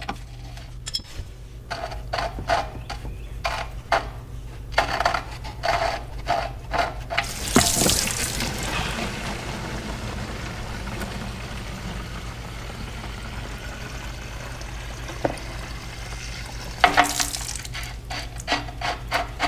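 A run of tool clicks and knocks as the gas tank's drain plug is worked loose, then old gasoline pouring out of the bottom of the tank in a steady stream for about nine seconds, ending in more clatter.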